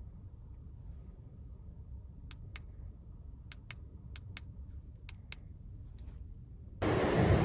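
Four pairs of sharp, small clicks over a low rumble. Near the end, loud wind noise and surf come in suddenly.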